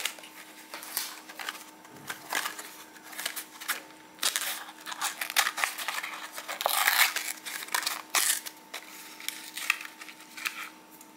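Toy-car blister pack being torn open by hand: paper-backed cardboard tearing and the stiff plastic blister crackling, in irregular bursts of rustling, scraping and snaps, busiest about seven seconds in.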